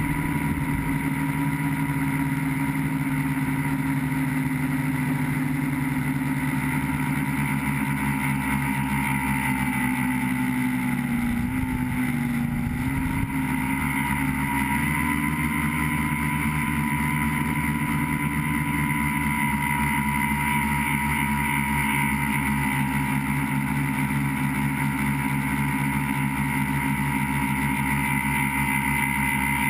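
Tricopter's electric motors and propellers whining steadily in flight, the pitch dipping briefly about halfway through as the throttle eases, then holding steady again.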